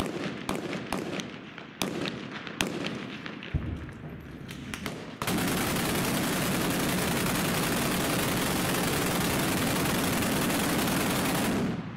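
Scattered gunfire, single shots and short bursts, then about five seconds in a heavy gun mounted on a pickup truck opens up in one long, unbroken burst of automatic fire lasting about six and a half seconds, which stops sharply just before the end.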